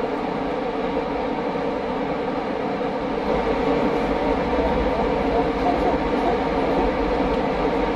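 Steady machinery drone from the surrounding factories, with constant humming tones and a low rumble that gets louder about three seconds in.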